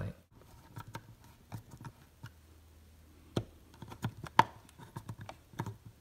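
Scattered light clicks and taps as a plastic switch cover plate and its screws are handled and fitted with a screwdriver, the sharpest click about four and a half seconds in.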